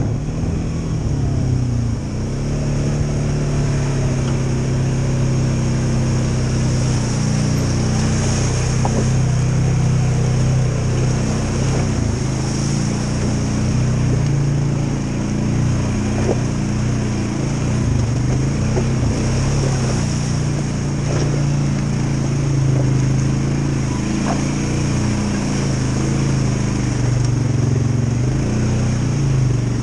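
Polaris Sportsman 570 ATV's single-cylinder engine running at a steady low throttle while the ATV is ridden slowly, its pitch rising and falling slightly with small throttle changes. A few faint clicks are heard along the way.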